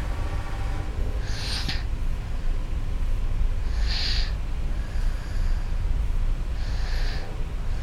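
Snoring: three noisy, hissing breaths about every two and a half to three seconds, over a steady low hum.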